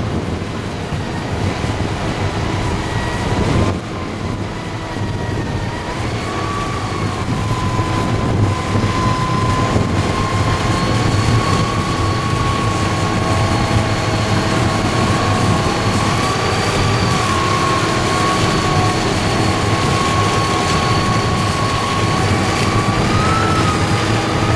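A Claas Jaguar forage harvester chopping maize and blowing it into a trailer, with the tractor running alongside: a loud, steady machinery drone with a high whine that wavers slightly in pitch and rises a little near the end.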